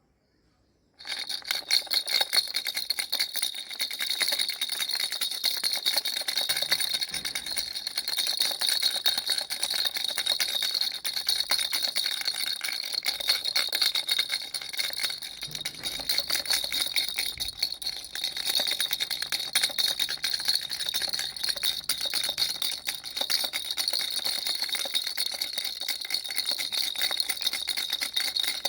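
Baby rattle shaken continuously, its small beads or bells jingling in a rapid, steady clatter with a bright metallic ring. It starts suddenly about a second in.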